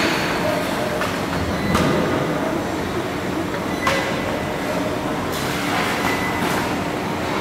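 Machinery running in a robotic car-body welding line: a steady industrial hum with a few faint steady tones and short bursts of hiss, about two seconds in and again near four seconds.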